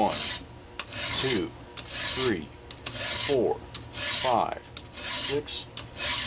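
A round chainsaw file being pushed across the cutter teeth of a full-comp chain clamped in a vise, at about one rasping stroke a second. Each stroke carries a brief metallic ring that drops in pitch. The teeth are being sharpened with a set count of eight strokes per tooth.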